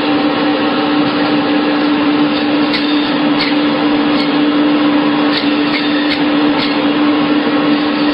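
Steady machine noise: a constant hum under an even whirr, with a few light clicks now and then.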